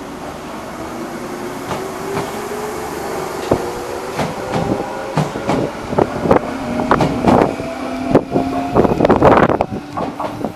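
Enshu Railway electric train No. 1002, built in 1985, pulling away and gathering speed. Its motor whine climbs steadily in pitch while the wheels clack over the rail joints, coming faster and louder, loudest near the end.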